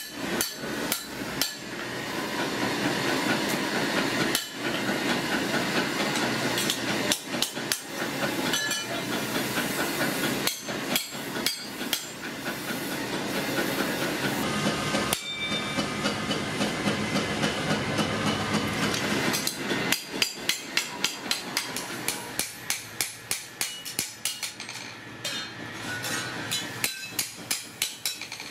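Hand hammer striking a steel brick-trowel blade on a small steel anvil block: repeated sharp metal-on-metal blows, irregular at first, then a quick, even run of strikes in the second half, over a steady background hiss.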